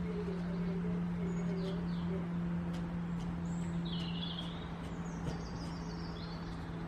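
Small birds chirping in short, scattered calls over a steady low hum and background noise.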